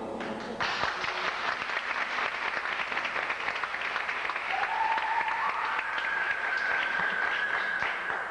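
Audience applauding as the music ends, a dense run of clapping. About halfway through a thin steady tone comes in and steps up once in pitch, carrying on under the clapping.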